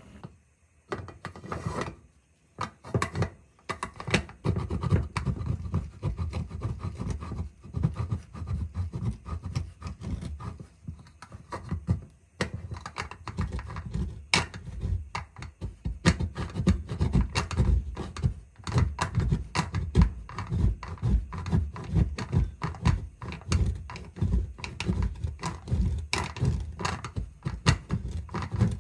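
A block of hard Grana Padano cheese grated by hand on a stainless-steel grater set in a wooden holder: quick back-and-forth rasping strokes with low thuds of the wooden base on the counter. It starts about a second in, pauses briefly, then keeps a steady working rhythm.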